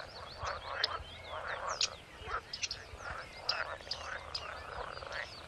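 Reed-bed chorus: frogs croaking in repeated rasping bursts, with many short, high, curving bird calls chirping over them.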